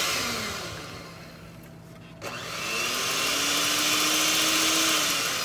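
Electric hand mixer running with its beaters in butter and cream cheese. Its whine drops and slows about a second in, then after a click a little past two seconds it speeds back up and runs steadily.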